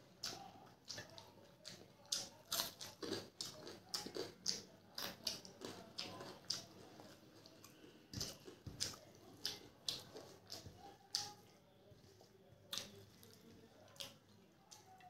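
Close-up eating sounds: wet chewing and mouth smacks mixed with fingers squishing rice and dal on a steel plate, an irregular run of short clicks and squelches that thins out over the last few seconds.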